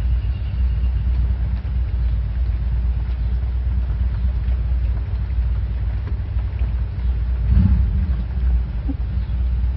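Steady low rumble of a running electric fan.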